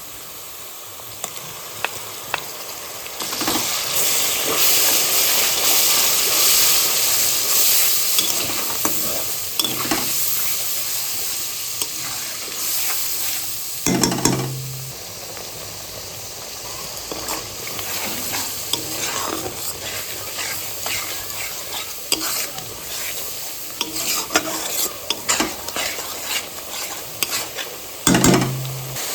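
Chicken gizzards sizzling as they fry in a pan while a spatula stirs and scrapes them, with many short clicks against the pan. The sizzle swells about three seconds in, and there are two heavier knocks, one around the middle and one near the end.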